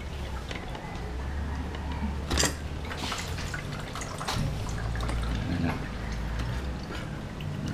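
Small metal clicks and clinks as the water pump on a Yamaha Sniper 150 engine is unbolted and worked loose by hand, with one sharp clink about two and a half seconds in, over a steady low hum.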